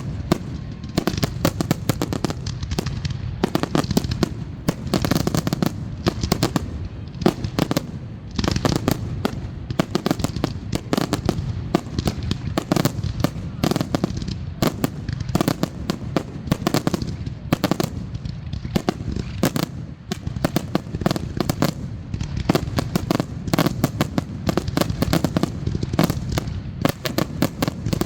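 Aerial fireworks finale: a dense, rapid barrage of bangs and crackling bursts going off one after another without a break, with a deep booming rumble underneath.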